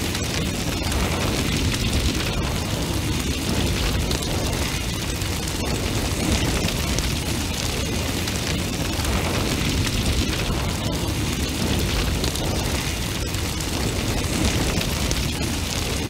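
Large, intense bonfire burning steadily: a dense, low rush of flames with many small crackles and pops throughout.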